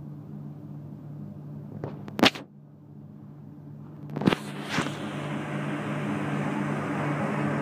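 Electric commuter train pulling away: a steady low hum from its motors and roof equipment, with a rushing noise that grows louder over the last few seconds. Two sharp knocks, about two and four seconds in.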